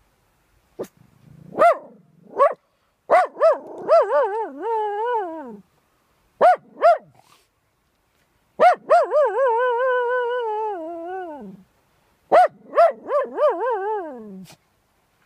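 A dog barking and howling: short barks that run into long wavering howls, three times over, the longest about halfway through.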